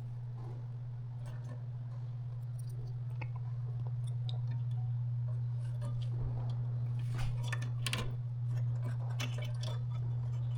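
Small clicks and scrapes of circuit boards and parts being handled and snapped into place inside an open spectrum analyzer, busiest in the second half, over a steady low hum.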